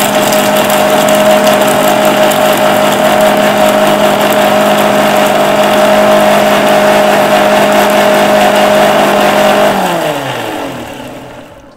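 Electric mixer grinder running loud and steady, blending egg, garlic, mint and oil into mayonnaise. Near the end it is switched off and winds down, its whine falling in pitch.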